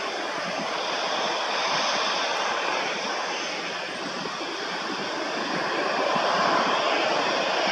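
Jet engines of an Airbus A320 running at low taxi power as it turns on the runway: a steady rushing noise that swells slightly near the end.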